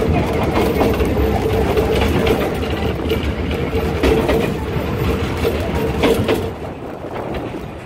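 Two-foot-gauge steam train coach riding along the track, a steady rumble and clatter with a few sharp knocks from the wheels over the rails. A steady high tone runs through it and stops about six and a half seconds in.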